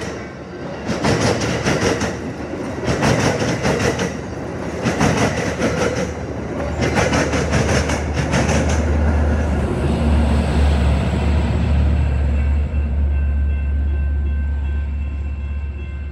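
Amtrak California bi-level passenger cars passing close by, their wheels clattering over rail joints in groups about once a second. The trailing F59PHI diesel locomotive follows with a deep engine drone from about seven seconds in, which fades as the train moves away.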